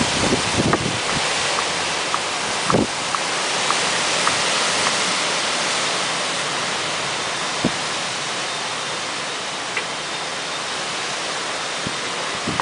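Thunderstorm wind rushing steadily through trees, with a run of light ticks and a couple of short thumps in the first few seconds.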